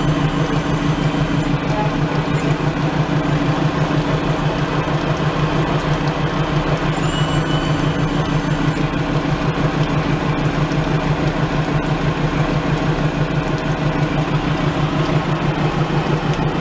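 Volvo Penta D3-160 five-cylinder diesel turning a sterndrive leg, running steadily with an even rapid pulse, its cooling water splashing out of the drive.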